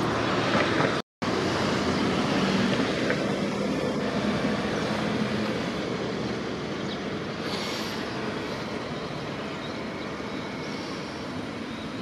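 Steady road traffic noise from cars passing on an adjacent road. The sound cuts out completely for a moment about a second in.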